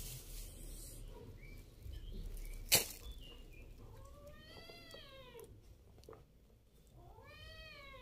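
A domestic cat meowing twice, each a long drawn-out call that rises and then falls in pitch, about four and about seven seconds in. A single sharp click comes a little before the first meow.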